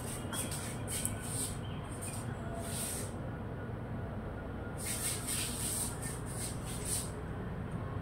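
Indian palm squirrel giving rapid high-pitched chirps in two bouts of quick short notes, over a steady low background rumble.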